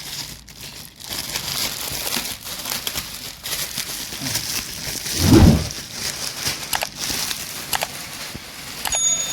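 Plastic packaging crinkling and rustling as it is pulled off a new sewing machine, with one heavy thump about five seconds in.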